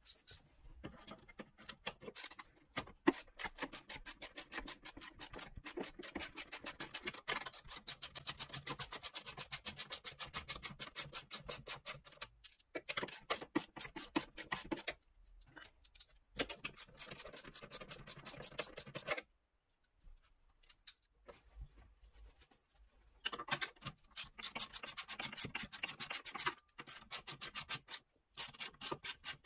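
Socket ratchet clicking in long, quick, even runs as bolts are turned, broken by several short pauses.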